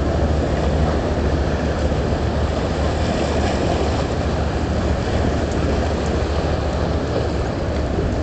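Steady low drone of a boat engine running, mixed with rushing water and wind noise.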